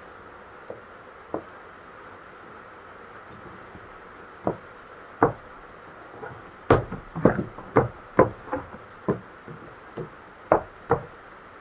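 Stiletto heels of patent leather pumps knocking on wet steps: a few scattered taps, then a quicker, uneven run of knocks from about halfway through as she climbs. Rain hisses steadily underneath.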